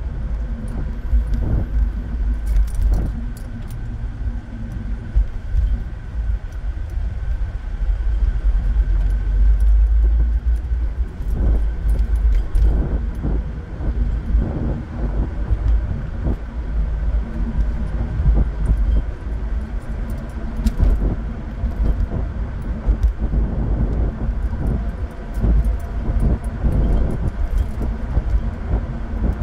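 Cabin noise of a moving car: a steady low rumble of tyres and engine, with scattered light rattles and clicks throughout.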